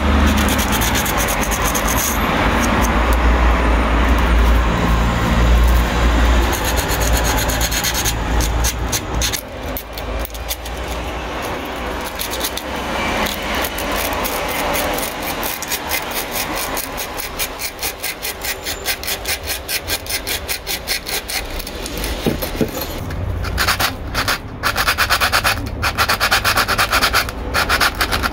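Hand sanding of the chair's wood with sandpaper during a second round of sanding: a continuous scratchy rubbing that becomes quick, even back-and-forth strokes about eight seconds in.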